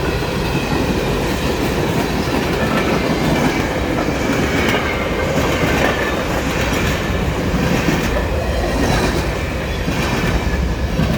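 A short train passing close by, its cars rumbling and clattering with the wheels clacking over the rail joints and a faint wheel squeal.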